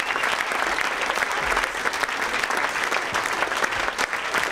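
Audience applauding, dense and steady clapping from many hands.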